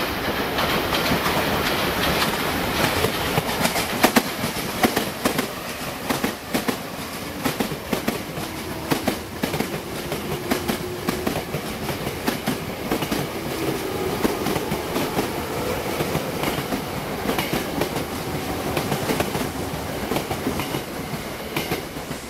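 209-series electric commuter train running in close by, its steel wheels clacking over rail joints and points in an irregular run of sharp clicks over a steady rolling rumble, with a faint steady whine in the middle.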